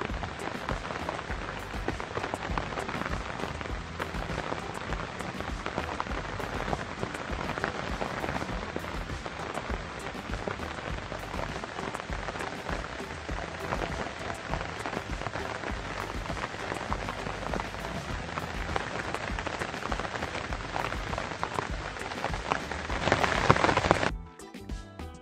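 Rain pattering on leaves: a dense, even crackle of many small drops that grows louder for about a second and then cuts off abruptly near the end.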